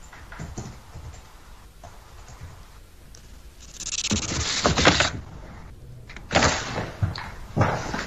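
Garbled, broken-up audio from a guest's faulty remote microphone link. Her speech comes through as choppy, scratchy noise rather than words, with two louder noisy bursts, one about four seconds in and a shorter one after six seconds.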